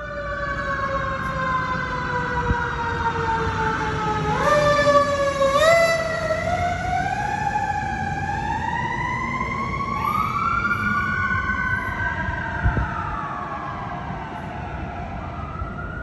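Fire truck siren wailing over a low rumble, its pitch sliding slowly down, jumping up twice about four and a half seconds in, then rising and falling slowly.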